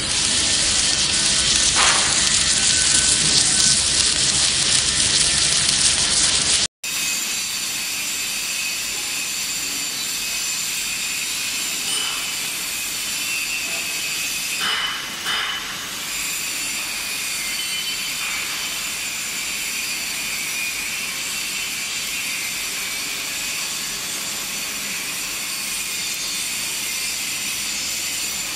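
Loud, steady hiss of a welding arc as the torch welds the pipe-to-flange joint. It cuts off abruptly about seven seconds in. After that comes a steady background of factory machine noise with faint high-pitched whines, and a brief louder patch near the middle.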